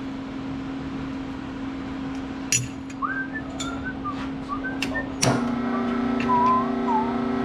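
Hydraulic press pump motor running with a steady hum and a few metallic clicks; after a clunk about five seconds in the hum drops a little in pitch and grows louder, with short high squeaks over it.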